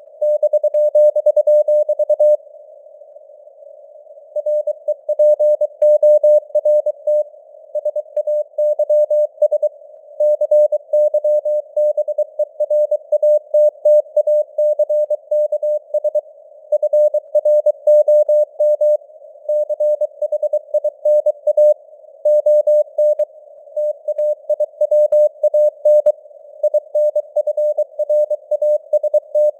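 Morse code (CW) at 23 words per minute: a single tone near 600 Hz keyed rapidly on and off in dots and dashes, over a narrow band of simulated radio hiss, with a signal strength that varies (QSB). There is a pause of about two seconds a little over two seconds in.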